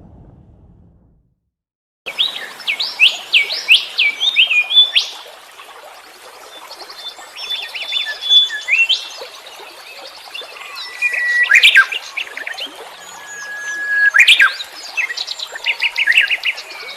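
A low sound fades out into a moment of silence, then about two seconds in a chorus of several wild songbirds starts: fast looping whistled phrases, trills, held whistles and sharp chirps overlapping over a steady hiss of background noise.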